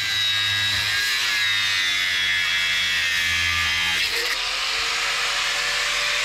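Angle grinder with a cut-off disc cutting through a steel post, a loud, steady high-pitched whine. About four seconds in the sound changes as the cut finishes and the grinder runs free.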